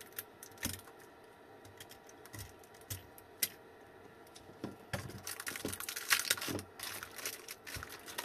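Scattered light clicks and taps from handling an opened e-bike battery pack, then from about five seconds in a denser run of clicking and crinkling as the pack and its wrapping are moved about.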